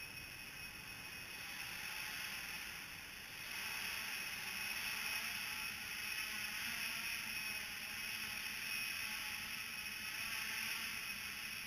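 Small quadcopter's electric motors and propellers whirring steadily with a high-pitched whine, getting louder about three and a half seconds in as it lifts off, then hovering low in barometric altitude-hold mode.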